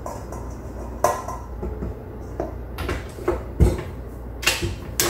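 Silicone spatula scraping and knocking against stainless steel bowls as farmer's cheese is scraped from one bowl into a stand mixer's bowl: a string of separate knocks and clicks, the loudest with a dull thump a little past halfway.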